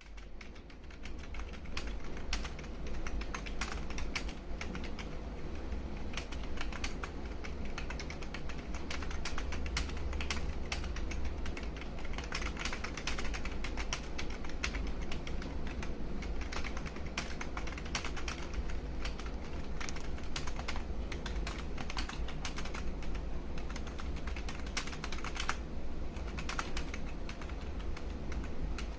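Fast touch typing on a computer keyboard: keys clicking in quick, irregular succession, with a steady low hum underneath.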